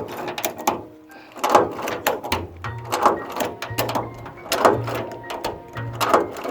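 Hand rivet gun being pumped to set a blind rivet: a sharp mechanical click-clack about every three-quarters of a second as the handles are squeezed and released, drawing the mandrel through the rivet.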